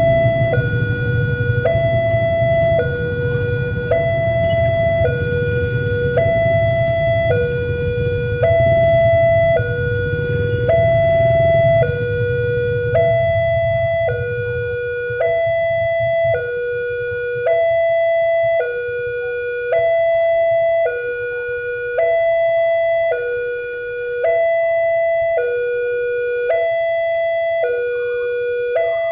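Railway level-crossing warning alarm sounding a two-tone electronic chime, a higher and a lower note alternating about once a second, the signal that a train is approaching and the barrier is closing. A low rumble underneath dies away about 13 seconds in.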